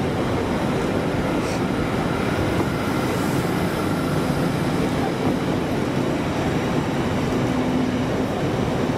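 LNER Hitachi Azuma high-speed train passing alongside the platform, its carriages rolling by with a steady, even running noise and a faint hum.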